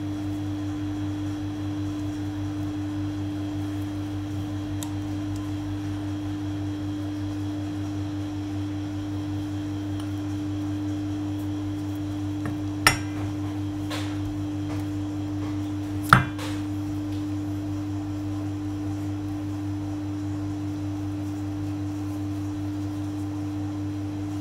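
A steady low hum with an even tone, interrupted by two sharp taps about halfway through.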